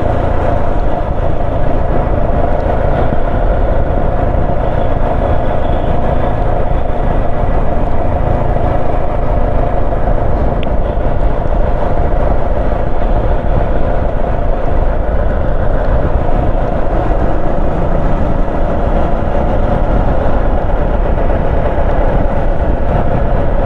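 Motorcycle engine running at a steady, even pitch while riding, with heavy wind and road rumble.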